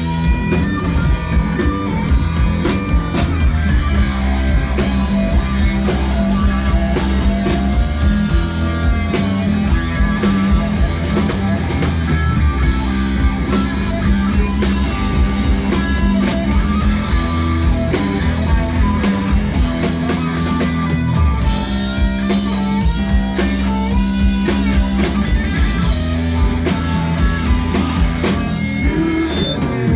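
Rock band playing with electric guitar, bass and drum kit: a loud, continuous passage with no vocals.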